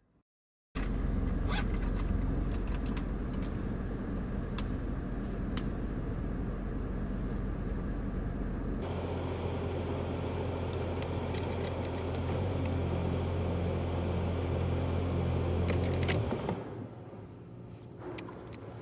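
Steady low rumble of a moving vehicle heard from inside, with scattered small clicks. The pitch of the rumble shifts abruptly about halfway through, then drops away near the end.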